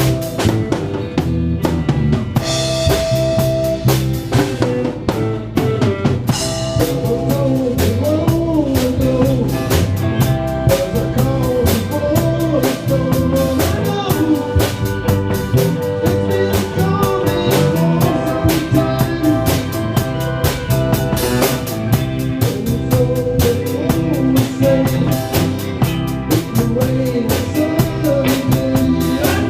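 Rock band playing live: drum kit, bass and guitars keeping a steady up-tempo beat, with a wavering melody line coming in about seven seconds in.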